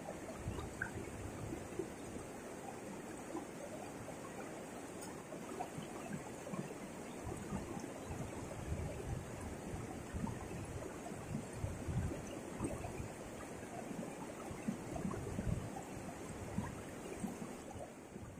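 Whitewater rapids of a fast river rushing steadily, the current running strong after rain.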